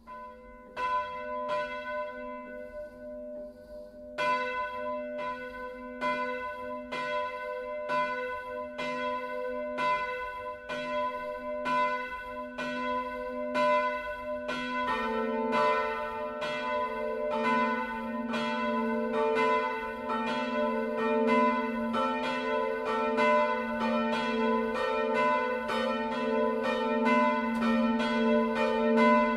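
Swinging church bells of a four-bell ring tuned e¹, f-sharp¹, a¹ and b¹ (German h¹), starting up for the full peal. The first bell begins striking about a second in, another joins at about four seconds, and more join around the middle, so the strikes grow denser and louder, each stroke ringing on into the next.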